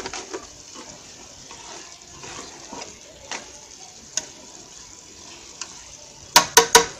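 A spoon stirring sweet potato leaves cooking in an aluminium pot, over a steady hiss and a few scattered clicks. Near the end, three sharp knocks in quick succession.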